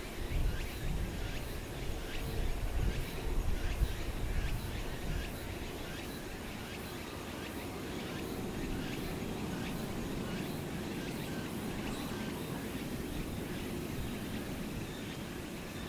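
Outdoor ambience: gusts of wind buffeting the microphone for the first five seconds or so, then a steady distant rumble that swells slightly in the second half.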